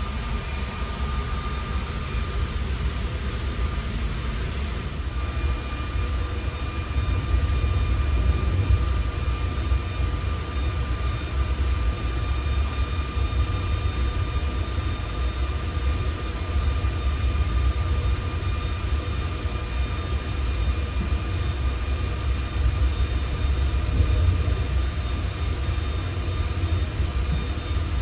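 Inside a moving passenger train (a coach hauled by an E464 electric locomotive): a steady low rumble of the train running on the rails, with a faint steady whine above it. The rumble gets a little louder about seven seconds in.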